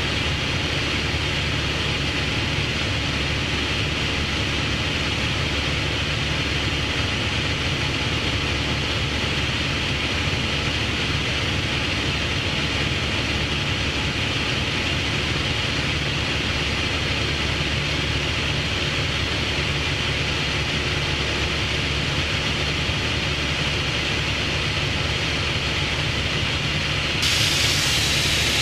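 Light aircraft's piston engine droning steadily in cruise, heard from inside the cockpit as a continuous drone with hiss. Near the end the hiss brightens and gets slightly louder.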